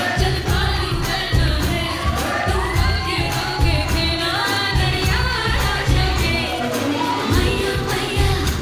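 A Bollywood dance song with singing over a steady, bass-heavy beat.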